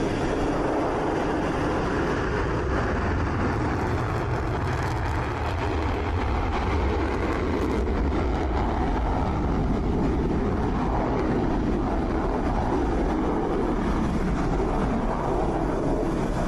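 Dassault Rafale fighter jet engines running, a steady loud jet noise with a deep rumble.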